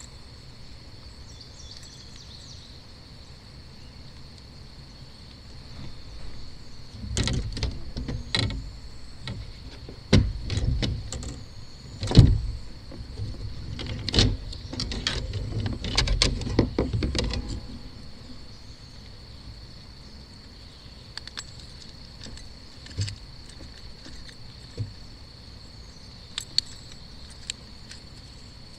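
Steady high drone of insects, with a cluster of knocks, thumps and metallic rattles from about 6 to 18 seconds in: a just-landed bass and fishing tackle being handled in a kayak.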